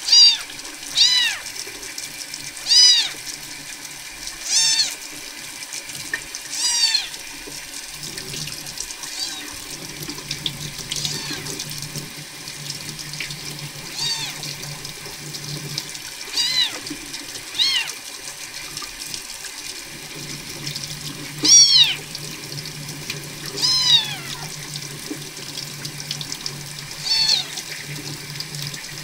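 Young kitten crying in short, high mews that rise and fall in pitch, a dozen or so of them one to three seconds apart, over warm tap water running steadily into a sink.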